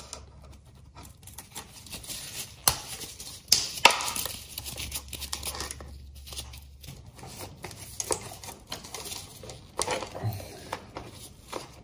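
Socket wrench and metal tool clicks and clinks, irregularly spaced, as bolts are undone on a motorcycle's front sprocket cover, with handling rustle of the cover near the end.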